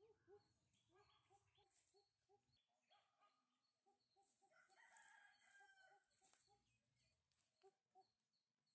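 Near silence with a faint rooster crow about halfway through, over quiet short calls repeating a few times a second.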